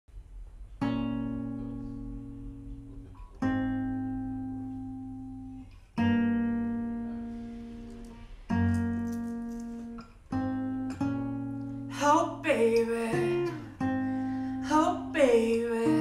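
Acoustic guitar playing slow strummed chords, each struck and left to ring out before the next, about every two and a half seconds. About twelve seconds in, a man starts singing over the guitar.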